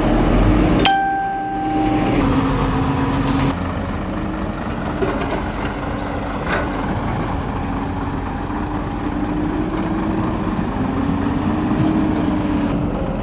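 Excavator's diesel engine running steadily, its pitch wavering slowly as the load changes. About a second in there is a sharp click, followed by a high steady whine that lasts about a second.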